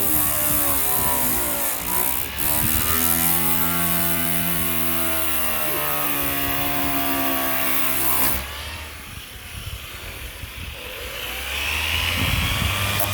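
Power sander stripping paint off a car's steel quarter panel, its motor pitch sagging and rising as it is pressed on and eased off. About eight seconds in it stops, and it starts up again near the end.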